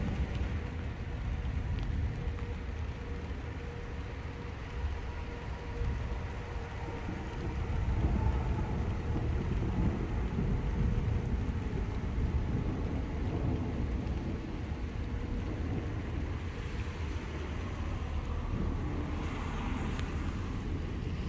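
Thunderstorm at night: a continuous low rumble of thunder with rain. A faint steady tone runs through the first half, and a hiss swells near the end.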